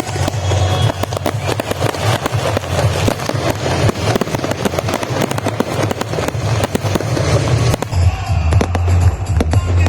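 Fireworks display with dense crackling and popping bursts, over music with a steady low bass.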